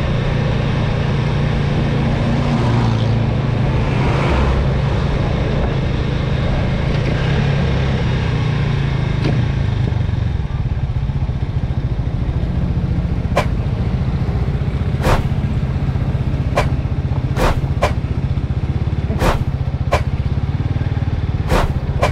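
Motorcycle engine running at a steady low pitch while riding. Past the middle there is a string of about ten sharp clicks or knocks.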